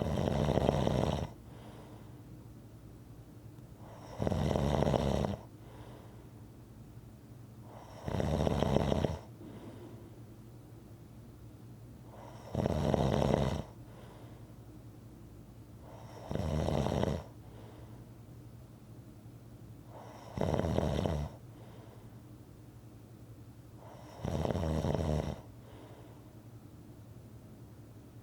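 Snoring in a slow, even rhythm: seven snores about four seconds apart, each lasting about a second, with a faint steady hum between them.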